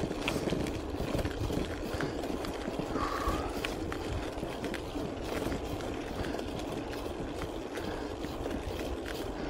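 Wind rushing over the microphone and bicycle tyres running on asphalt while riding, a steady low rumble with a few small clicks scattered through it.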